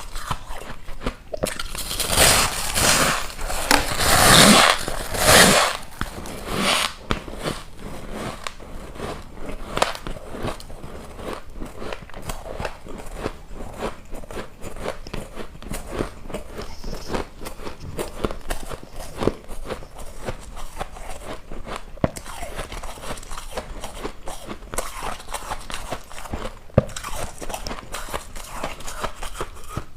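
A person biting and chewing ice close to the microphone. Several loud crunching bites come in the first few seconds, followed by steady crackling crunches as the ice is chewed.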